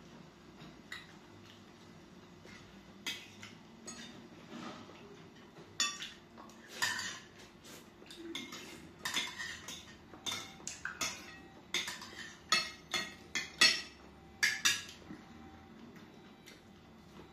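Forks and spoons clinking and scraping against glass plates as two people eat. Scattered sharp clinks start about three seconds in and come thickest in the second half, then stop a couple of seconds before the end.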